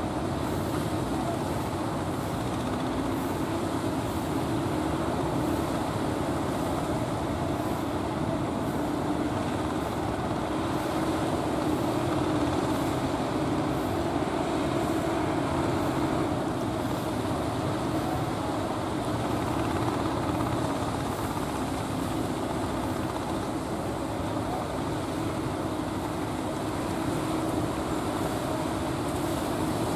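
Fishing boat engines running in a steady drone that wavers slightly in pitch, over the rush of breaking surf.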